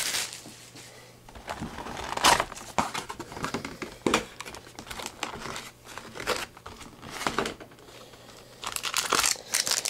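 Cardboard trading-card hobby box being handled and opened by hand: scattered rustling and scraping of the card stock and flaps, busier near the end.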